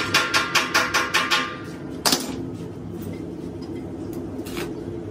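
Ringing metal strikes from a steel tool tapping rapidly on a welded steel air compressor tank, about five a second, stopping about a second and a half in. One harder strike comes about two seconds in and a faint one near the end, over a steady low hum.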